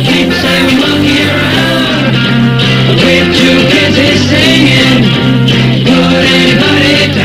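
Rock music playing loud and steady, with guitar.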